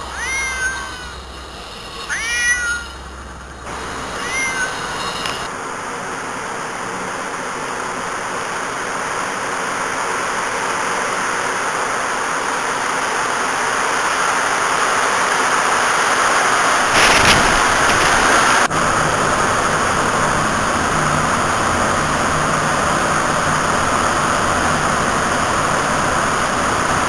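A cat meows a few times from inside its pet carrier in the first few seconds, each call rising then falling in pitch. Then the steady rushing noise of a subway train takes over, growing louder until about two-thirds through, where there are a couple of sharp knocks, and carrying on as a steady rumble with a low hum.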